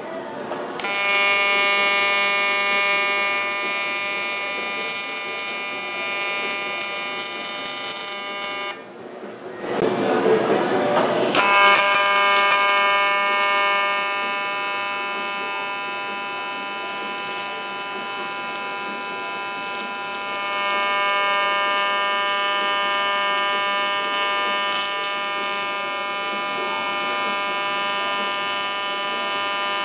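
Steady electric buzz of a TIG welding arc on the cast-aluminum transmission snout, the AC arc's hum carrying a hiss above it. The arc stops for a couple of seconds about nine seconds in, then strikes again and holds steady.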